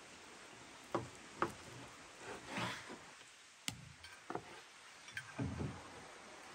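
Kitchen knife cutting raw beef on a wooden cutting board: several sharp knocks of the blade on the board and a brief slicing rasp, then a cluster of soft thuds as the cut meat pieces are handled on the board.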